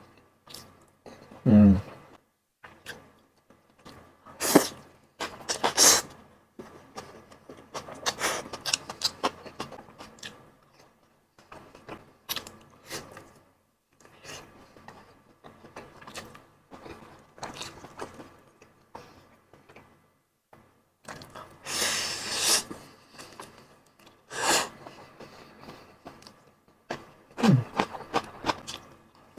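Close-miked eating of fish-ball noodles: slurping and chewing in short, irregular bursts, with a longer slurp past the middle. A short hummed 'mm' comes near the start.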